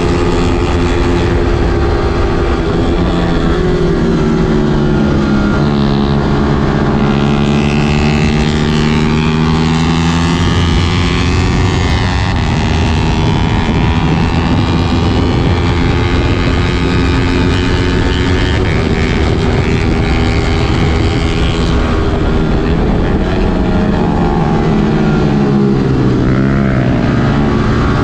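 Motorcycle engine running hard, its pitch falling and rising again several times as the throttle and speed change.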